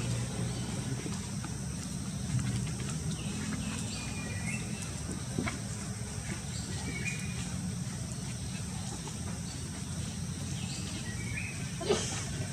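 Outdoor ambience: a steady low rumble under a thin, steady high drone, with short high chirps every few seconds and a sharp click near the end.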